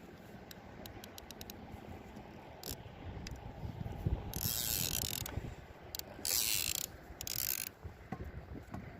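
Fishing reel at work: a quick run of ratchet clicks, then three short bursts of hiss, each about half a second to a second long.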